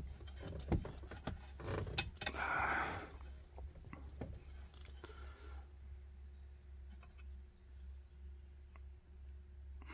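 Scattered small clicks and rustling of hands working a wire and a plastic clip into place in the truck, busiest in the first half, then quieter, over a steady low hum.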